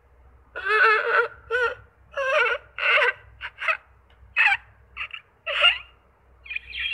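A girl's voice sobbing and whimpering in about ten short, wavering cries, some rising high and breaking.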